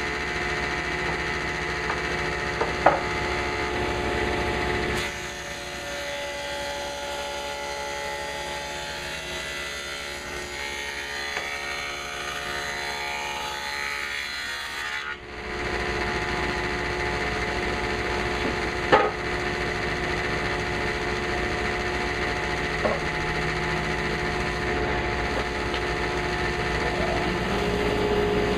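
A power tool running steadily while cutting wood, with a few short sharp clicks.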